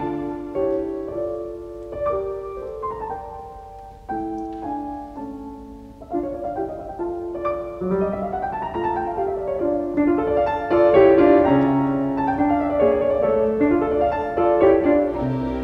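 Background music: a piano playing a slow melody, which swells and grows fuller after about six seconds.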